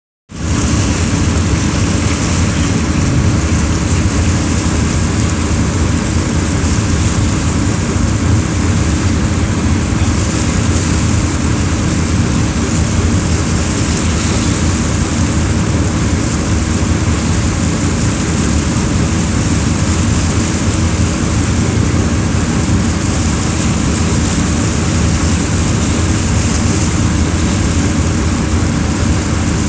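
Steady, loud low engine drone with a hiss over it, unchanging throughout.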